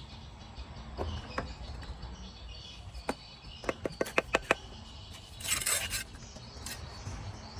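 Hand tools on brick and mortar: a few sharp clicks, then a quick run of about six sharp taps, then a short scrape, over a steady chirring of crickets.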